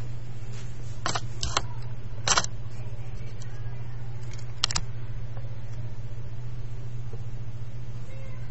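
Webcam handling noise: a few sharp clicks and knocks in the first five seconds, loudest a little after two seconds in, over a steady low electrical hum.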